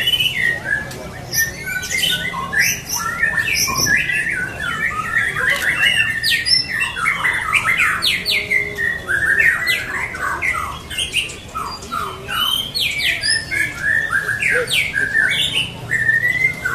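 White-rumped shama (murai batu) singing a fast, unbroken run of varied whistled notes and quick up-and-down pitch sweeps.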